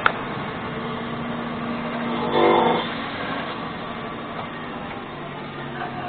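Wood-Mizer LT15 portable band sawmill running on its electric motor, the band blade cutting lengthwise through an oak log with a steady hum and whirr. A sharp click right at the start, and a brief louder pitched sound about two and a half seconds in.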